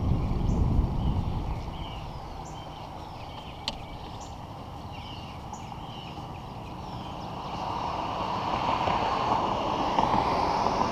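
Wind rumbling on a moving action camera's microphone fades after about two seconds, leaving outdoor ambience: birds chirping repeatedly, one sharp click, and a rush of traffic that builds toward the end.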